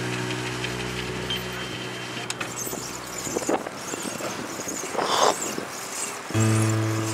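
Road and traffic noise, with a louder swell about five seconds in. A held music chord fades out over the first two seconds, and a new one comes in loudly near the end.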